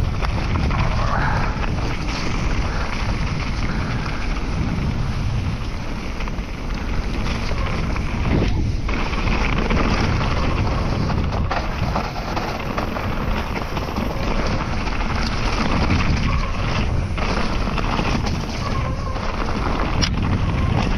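Steady rush of wind on a GoPro microphone, mixed with tyre noise and rattle from a Trek Remedy 7 full-suspension mountain bike riding a trail.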